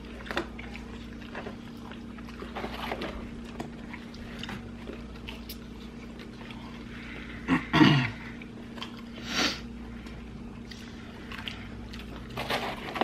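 People eating fried chicken and pizza close to the microphone: soft chewing and mouth sounds over a steady low hum. A short sound falling in pitch comes just before the eight-second mark, the loudest moment.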